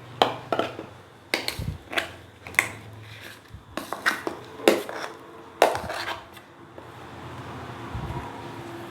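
A spoon clinking and scraping against a metal vessel while thick paniyaram batter is handled: a dozen or so sharp, irregular knocks in the first six seconds, then a faint steady hum.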